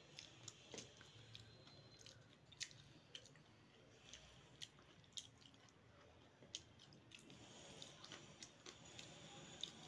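Faint, close-up eating sounds: chewing, with scattered short crunches and clicks as crisp golgappa puri shells are cracked open, stuffed with green chillies and eaten.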